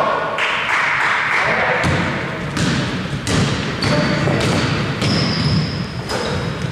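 Basketball game sounds: the ball bouncing on the court with repeated thuds, amid players' and spectators' voices.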